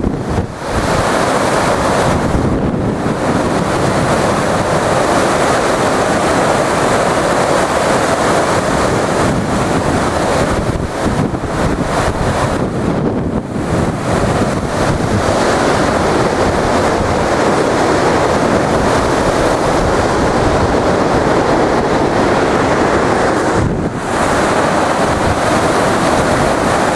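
Hurricane-force wind blowing hard and continuously, buffeting the microphone, dropping off briefly a few times between gusts.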